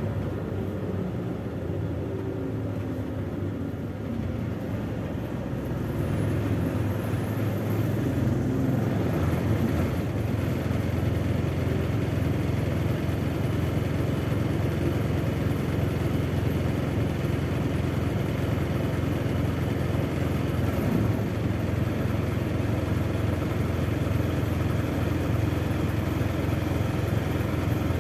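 Cabin sound of a MAZ 206 city bus under way: its engine and drivetrain give a steady low rumble, which grows louder about six seconds in as the bus pulls forward with the traffic, then holds level.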